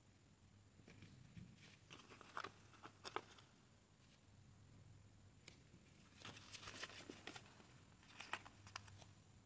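Faint crinkling and ticking of a paper sticker sheet being handled as small stickers are peeled off and pressed onto paper, in a few short clusters over a low steady hum.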